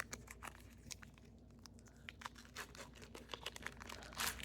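A baseball card pack's wrapper being torn open and handled: faint crinkling and a scatter of small crackles, with a louder crinkle near the end.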